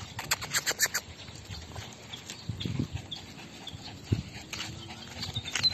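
Claws of several small dogs clicking on concrete as they trot along on leashes: a quick run of ticks in the first second, then scattered clicks.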